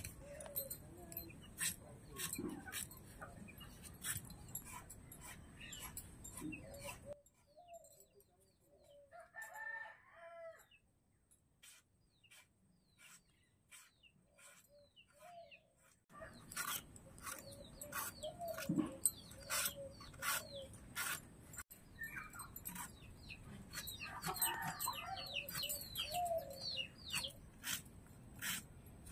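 A potato being peeled against a bonti, a curved blade fixed upright on a wooden base: a quick series of crisp scraping cuts that stop for several seconds midway, then start again. Chickens cluck and a rooster crows in the background.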